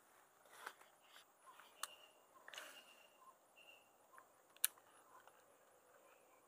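Quiet waterside ambience with faint insects chirping, broken by a few soft clicks and rustles as a baitcasting rod and reel are handled. One sharp click a little past halfway is the loudest sound.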